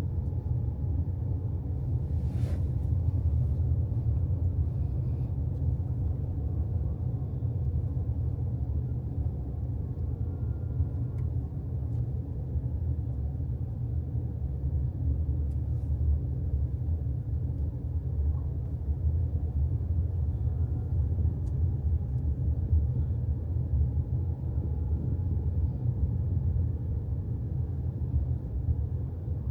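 Steady low rumble of a vehicle in motion, with one short click about two and a half seconds in.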